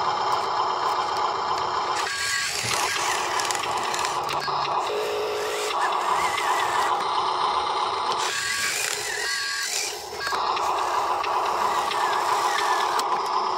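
Huina RC dump truck's electric drive motor and gearbox whirring steadily as it drives loaded with dirt, easing off briefly twice.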